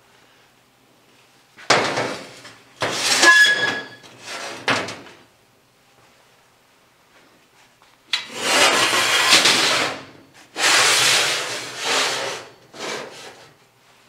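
Welded steel square-tube frame clanking and scraping against the steel rotary-cutter deck plate as it is set down and slid into place: a first round of clatter with one ringing metal clank about three seconds in, then longer sliding scrapes from about eight seconds.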